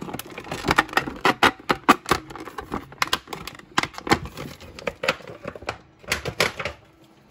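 Stiff clear plastic blister packaging crackling and clicking as a plastic diorama piece is handled and pulled out of it: a fast, irregular run of sharp clicks that thins out near the end.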